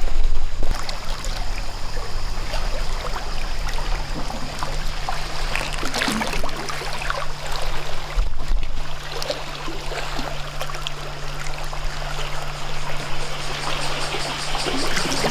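Small waves of seawater lapping and splashing against rocks and a concrete breakwater, with a steady low hum underneath.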